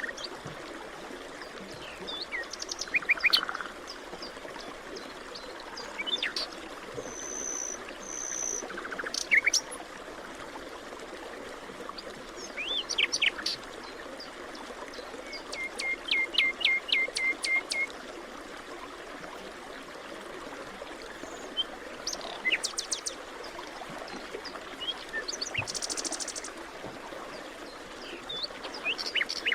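Several forest birds chirping and calling in short, scattered phrases, including a quick trill of about seven repeated notes midway, over a steady background hiss.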